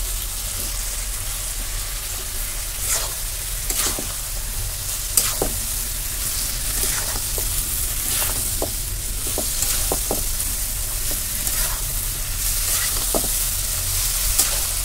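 Masala-coated chicken pieces sizzling as they are dry-fried in a kadai, with a metal spatula scraping and clicking against the pan at irregular moments as the chicken is stirred.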